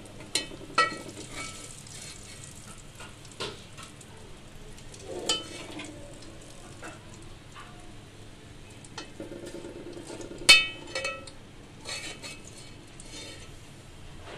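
Serving utensils clink and scrape against an aluminium pot and a plate as fried chicken is dished out. There are a few sharp ringing clinks, the loudest about ten seconds in, over a faint sizzle of hot oil.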